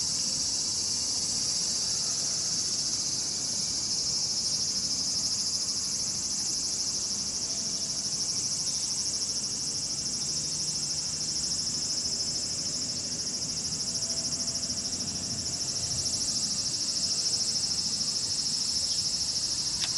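Insects chirring steadily: a continuous high-pitched buzz with a fine, fast, even pulse.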